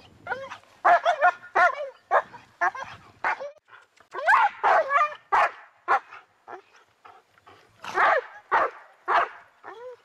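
An animal's short yelping cries, several a second, in runs with brief pauses, loudest about four seconds in and again near the end.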